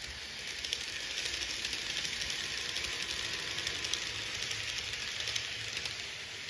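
N-gauge model electric train running past on its track: a steady whirring hiss from the motor and wheels, with fine rapid clicking of wheels over the rail joints and points, a little louder as it passes.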